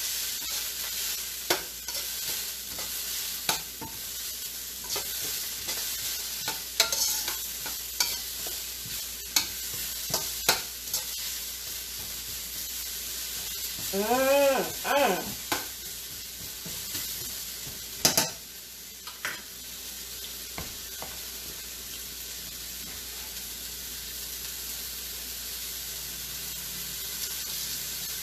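Vegetables frying in olive oil in a wok, a steady sizzle, while a wooden spatula stirs them with scattered clicks and knocks against the pan. The knocks die away after about twenty seconds, leaving the sizzle alone.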